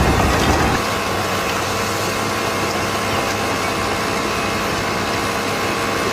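Machinery running with a steady, noisy hum. A heavier low rumble drops away less than a second in.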